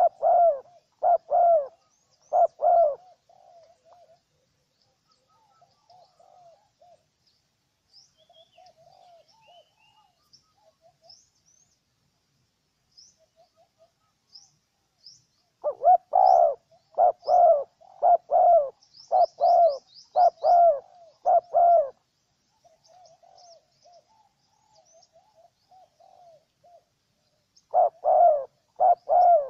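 Spotted dove cooing: loud runs of rapid repeated coos, about two to three notes a second, at the start, again in the middle for several seconds, and starting up again near the end, with softer coos in between. Faint high chirps from small birds sound throughout.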